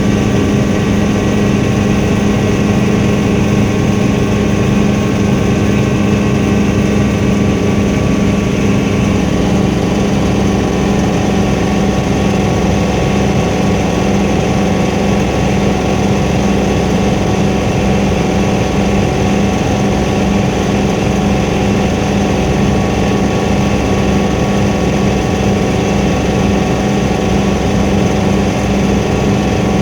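Helicopter in flight: a loud, steady drone of engine and rotors, with several steady hums held at one pitch throughout.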